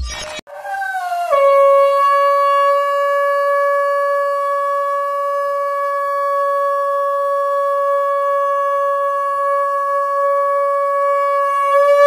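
Conch shell (shankh) blown as one long, unbroken note, the pitch sliding down briefly as the blast starts and then held steady for about eleven seconds.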